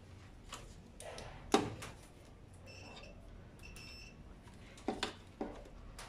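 Handling noise from a washing machine's wiring harness and multimeter test leads: a few light clicks and knocks of plastic connectors and probes, the sharpest about one and a half seconds in and two more near the end.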